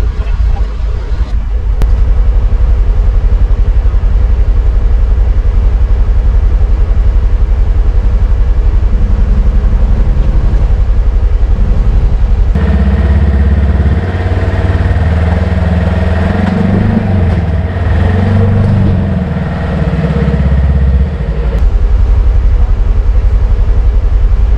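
2022 Polaris Ranger XP 1000 Northstar's twin-cylinder engine running at a low, steady idle, heard from inside the closed cab. Its tone changes about halfway through.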